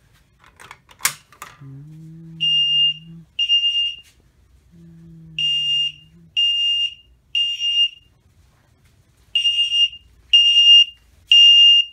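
A Fire-Lite pull station clicks as it is pulled about a second in. Then a Mircom fire alarm horn strobe sounds the temporal-three evacuation code: groups of three short, high, steady beeps with a longer pause between groups, starting a little over two seconds in.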